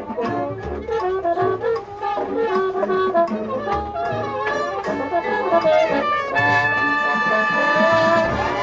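High school marching band's brass and saxophones playing a jazz-style passage of short notes over low drum beats, then holding a long, loud sustained chord from about six seconds in.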